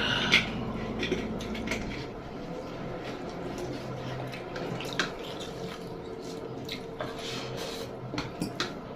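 Eating sounds: scattered clinks and taps of utensils on a plate over a steady low background hum, which drops away about two seconds in.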